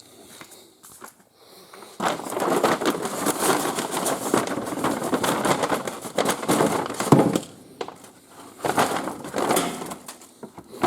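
A bag rustling and crinkling as items are dug out of it, starting about two seconds in and going on in irregular bursts, with a second shorter bout near the end.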